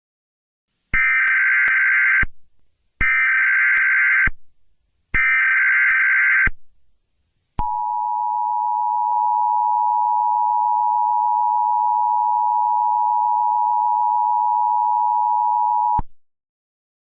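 Emergency Alert System tones: three bursts of the SAME digital data header, each a little over a second long, then the steady two-tone attention signal held for about eight seconds before it cuts off. Together they mark the start of a new emergency alert broadcast.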